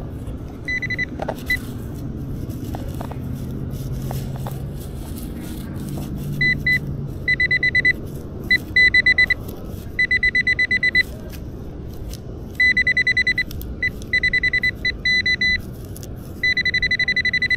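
Nokta AccuPoint pinpointer beeping at one high pitch: trains of rapid pulses that come and go, at times running together into a steady tone for about a second, as it closes in on a buried target. Underneath, a low rustle of digging and a few light knocks in the first seconds.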